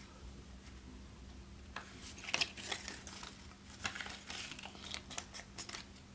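Paper banknotes being handled and tucked into a paper cash envelope: quiet, crisp rustling and crinkling in short bursts that start about two seconds in.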